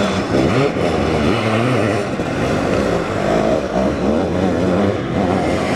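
Sidecar motocross outfits racing, their engines revving up and easing off over and over, the pitch rising and falling.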